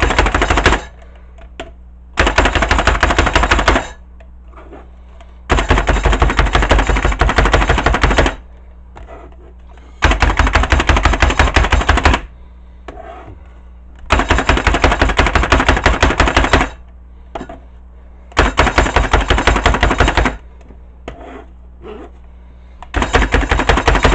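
Hand-pumped slap chopper (plunger-style food chopper) being slapped down fast, chopping food fine. The fast strikes come in runs of two to three seconds, with pauses of a second or two between them.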